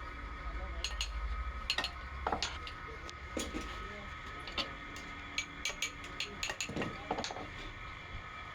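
Metal tools and parts clinking and tapping in irregular sharp strikes during work on a refrigerator compressor, over a steady background hum. A low hum stops about two and a half seconds in.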